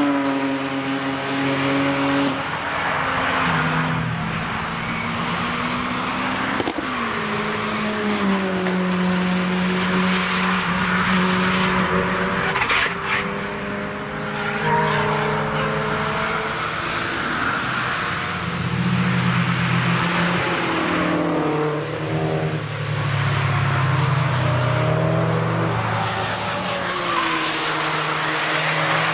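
Several cars driving hard through a bend one after another, their engines revving up and down with the gear changes as they brake and accelerate. At times two engines overlap.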